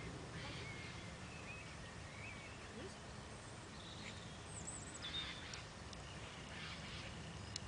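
Quiet outdoor ambience: a steady low rumble with a few faint bird chirps.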